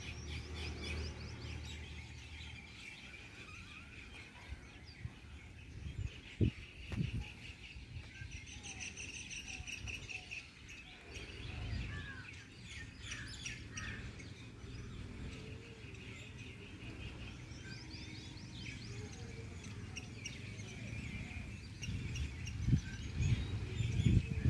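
Birds chirping and trilling over and over, some calls as fast rattling trills, with a low rumble underneath and a couple of soft knocks.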